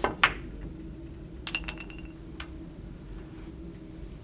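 Billiard shot: two sharp clicks of cue and ball at the start, the second the loudest, then a quick run of ball clicks with a brief ringing about a second and a half later.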